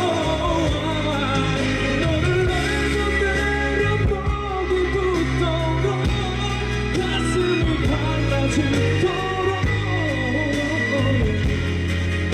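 Live pop ballad: a singer's voice over band accompaniment.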